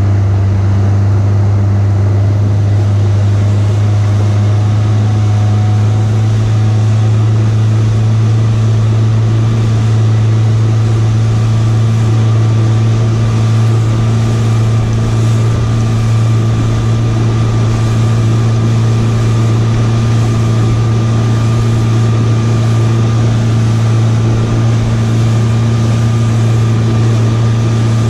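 Outboard motor running steadily at speed, a constant low drone, over the rush of wind and water as the boat planes.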